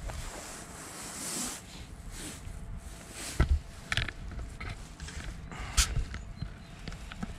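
Wind buffeting the microphone in a low rumble, with several sharp knocks and clicks of handling gear, the loudest about three and a half and six seconds in.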